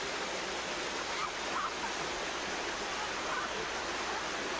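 Steady rushing of a shallow river, with a swimmer splashing through the water.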